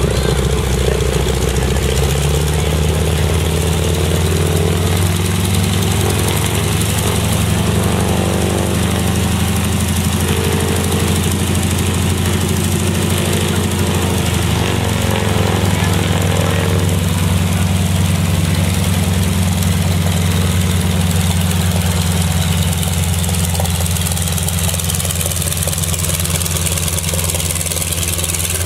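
Nine-cylinder radial engine of a North American T-6 Texan trainer running at low power as it taxis, a steady, loud, rough drone whose pitch wavers for a while around the middle.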